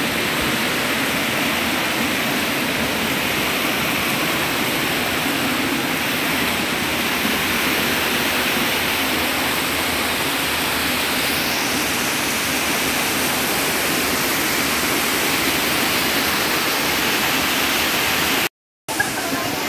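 Steady rushing of a spring-fed mountain river tumbling over rocky cascades and small waterfalls. The sound cuts out for a split second near the end.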